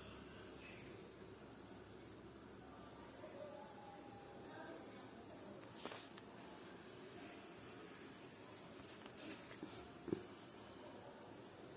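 Insects chirring steadily in a high-pitched, evenly pulsing drone, with a couple of faint knocks.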